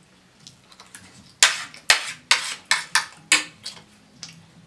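A metal fork clinking and scraping against a ceramic dinner plate during a meal: a quick run of sharp clinks, several a second, from about a second and a half in until nearly four seconds in.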